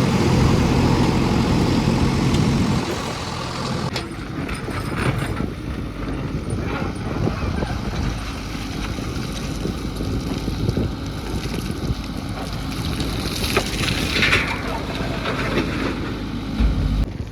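Heavy diesel engine of a backhoe loader or truck running hard with a steady pitched hum, which drops away suddenly about four seconds in, leaving a rougher, quieter machinery rumble with a brief hiss near the end.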